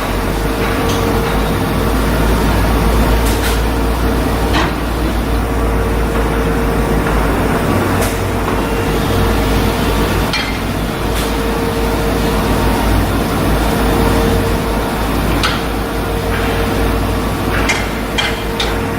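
Shipyard work noise: a steady machine drone with a constant hum, broken now and then by sharp knocks.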